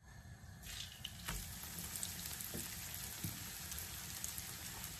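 Coconut-and-breadcrumb-coated plantain frying in shallow oil in a non-stick pan, sizzling. The sizzle starts about half a second in, builds to a steady level within the next second and holds, with a few faint ticks.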